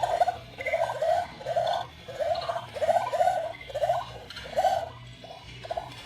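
Battery-powered Halloween skull fish toy playing its electronic bubbling sound: a steady run of short gurgling blips, two or three a second.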